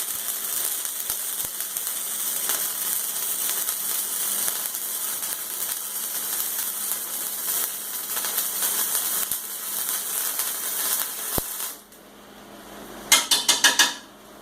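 Electric arc welding: a steady crackling, frying hiss from the welding arc as a bead is run across the end of a steel plate. The arc stops about 12 seconds in, and a quick run of about six sharp taps follows near the end.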